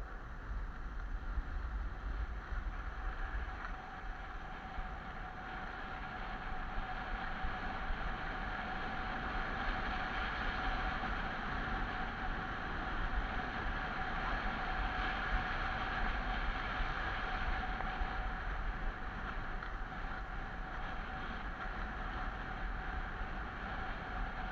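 Skis sliding over hard-packed groomed snow, a steady hissing scrape that swells in the middle, with wind buffeting the microphone as a low rumble.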